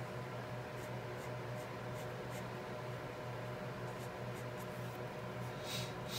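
Alcohol marker strokes scratching lightly across a coloring-book page, short and irregular, with a louder stroke near the end, over a steady low hum.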